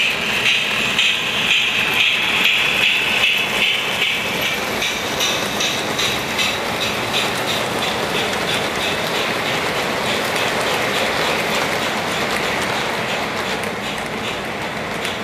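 Lionel O-gauge Atlantic toy steam locomotive's Mighty Sound of Steam chuffing rhythmically as it passes. The chuffing fades after about four seconds, leaving the steady rolling rumble and light clicking of its passenger cars' wheels on three-rail track.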